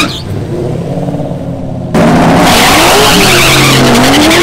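High-powered V8 drag cars: a lower engine rumble for about two seconds, then an abrupt jump to a loud V8 revving up and down with tyre squeal.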